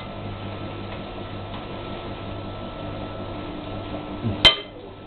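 Steady low hum of room tone, with a single sharp click about four and a half seconds in.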